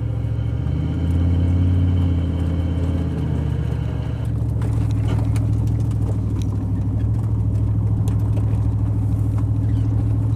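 A truck's engine and exhaust giving a steady low drone while driving, swelling briefly about a second in. The loud exhaust noise comes from the tailpipe having come off the muffler.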